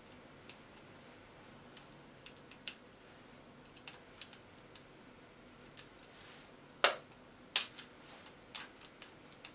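Scattered light clicks and ticks from handling the opened cassette deck of a Sony CFS-F10 boombox, with two sharper clicks about seven seconds in.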